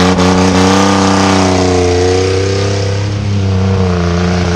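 Turbocharged Chevrolet 4.3 V6 truck engine held at high revs, loud and nearly steady, with a slight sag in pitch about three seconds in.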